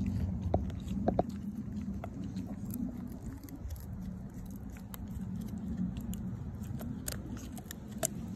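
Cane Corso x Presa Canario puppy gnawing a wooden stick: scattered sharp cracks and clicks of teeth on wood, over a low steady rumble.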